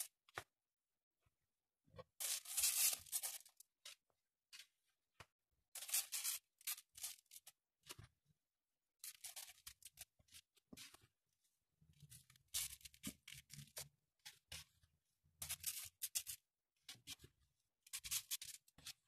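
A silicone spatula scraping and scooping a dry semolina, sugar and flour mixture and scattering it into a metal baking tray. The scraping comes in about six short, scratchy bursts, one every two or three seconds.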